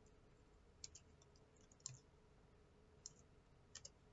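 Faint computer mouse clicks, about five at irregular intervals, one of them a quick double click, over quiet room tone with a faint steady hum.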